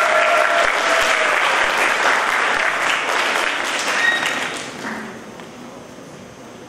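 Audience applauding, a dense clapping that dies away about five seconds in.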